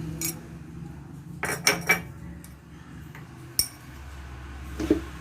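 A spoon clinking against a bowl and container while spoonfuls of flour are added to the chicken marinade: a few scattered clinks, a quick run of three or four about a second and a half in, and a sharper metallic ring about three and a half seconds in.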